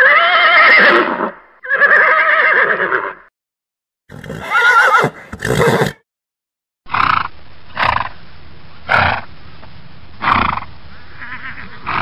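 Horses neighing, in a string of separate clips. Two long whinnies come first, then two shorter wavering ones around the middle. After that, over a steady background hiss, come four short calls about a second apart and a faint one near the end.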